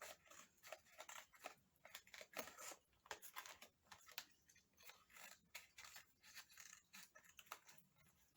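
Toy packaging being opened by hand: faint, irregular crinkles, snips and clicks, several a second.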